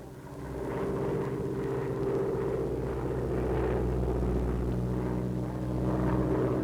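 The twin radial engines of a PBY Catalina flying boat drone steadily in flight. The sound fades in over the first second and grows slightly louder near the end.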